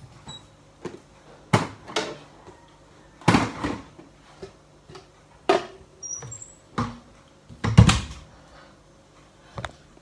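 Kitchen cupboard doors and the things on their shelves knocking and clattering in a series of irregular bumps as items are taken out. A few short high squeaks come about six seconds in.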